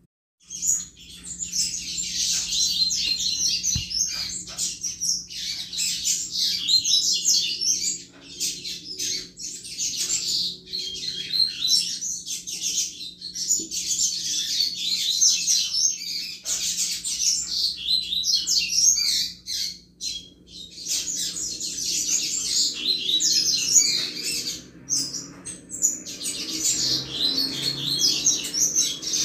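Double-collared seedeater (coleiro) singing the 'chuva' song style: long runs of fast, high twittering phrases, broken by short pauses about eight seconds in, around twenty seconds in and near the end.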